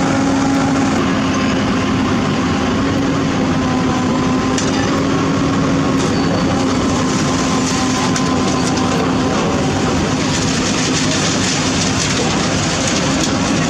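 Heavy construction machine's diesel engine running steadily with a constant hum, with light metallic clinks and rattles that grow more frequent in the last few seconds.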